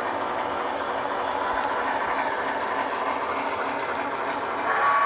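Lionel O-gauge Heisler model locomotive running on its track, with steady mechanical running noise and the engine's RailSounds steam-locomotive sounds playing. Near the end its sound system blows a horn in several steady tones.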